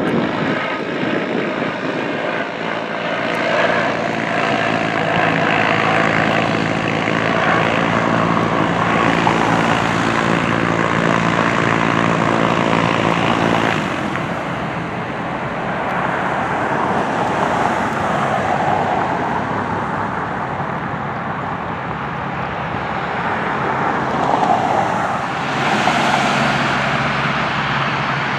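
Aircraft engines, loud and close. First comes a steady drone made of many even tones. This cuts off abruptly to a helicopter flying overhead, a more even rushing sound. Near the end, a Gulfstream G650 business jet taxis with its twin turbofans whining.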